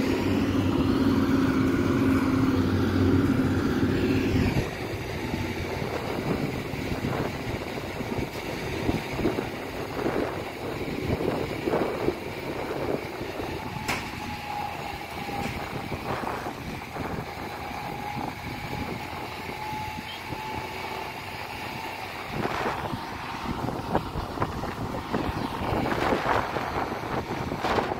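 A vehicle engine running close by, steady, for about the first four seconds. It then gives way to a lower outdoor hum of vehicles running at a distance, with a faint steady whine through the middle and scattered light knocks.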